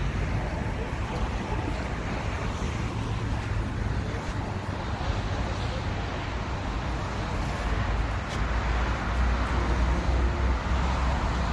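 Jet airliner engine rumble, a steady low noise that grows louder from about eight seconds in.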